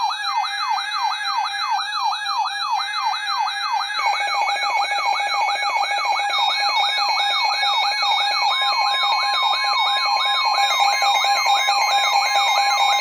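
Electronic emergency alert alarm for a weather warning. A pitch sweeps down over and over, about three times a second, over a steady lower tone, and a steady higher tone joins about two-thirds of the way in.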